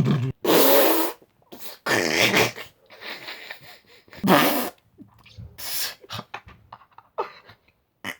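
Two boys making a string of short, loud fart noises, one after another with brief gaps between them.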